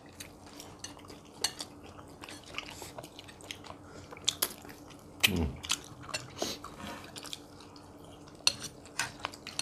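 Spoons clinking now and then against ceramic bowls and plates during a meal, with a little chewing; a few louder clinks come in the middle and near the end.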